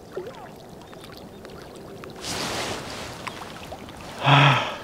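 Light water splashing and small clicks, with a brief rushing swish about two seconds in. Near the end comes a short, loud vocal groan from a man.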